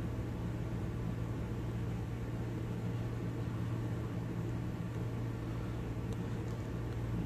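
A steady low mechanical hum over an even hiss, unchanging throughout, like a small motor running nearby.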